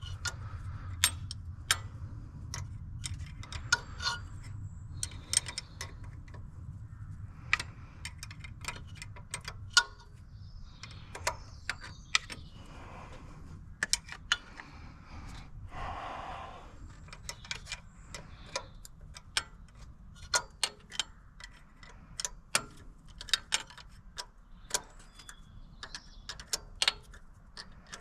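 Metal hand tools clicking and clinking at irregular intervals while work goes on in a car's engine bay, some strikes ringing briefly, over a steady low hum.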